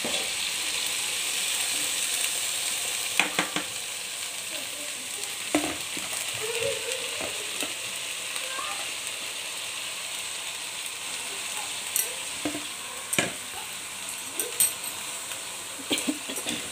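Hot oil sizzling steadily under a pile of freshly added shredded cabbage in a wok, with a few short, sharp clicks and knocks scattered through.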